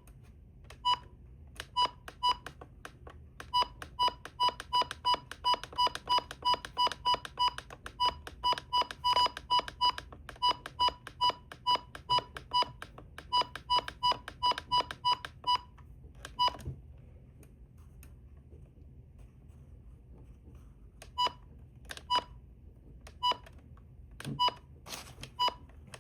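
Weather radio's key beeps: a short, high, identical beep at each button press, coming quickly, about two or three a second, as its alert-type menu is stepped through, then stopping and resuming as a few spaced beeps near the end. A couple of soft knocks from handling the radio come in the pause.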